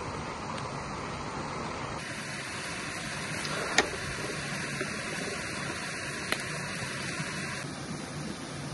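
Steady rushing of river water, with two sharp clicks a few seconds apart.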